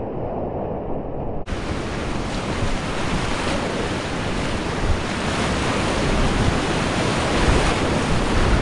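Whitewater rapids rushing around a kayak, heard from a camera on the boat. The sound is dull and muffled at first. After a brief drop-out about a second and a half in, it opens into a bright, full rush of churning water.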